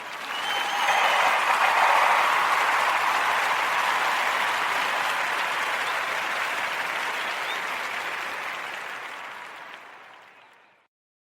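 Crowd applauding, swelling over the first couple of seconds, then fading away and cutting off just before the end.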